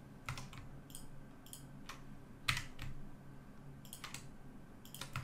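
Computer keyboard keys being pressed, about eight short scattered clicks, over a faint steady low hum.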